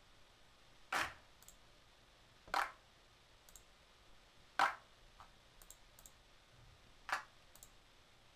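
Four different clap samples previewed one after another, each a single sharp hand-clap hit that dies away within a fraction of a second, spaced about one and a half to two and a half seconds apart. Faint computer clicks fall between them as the next file is selected.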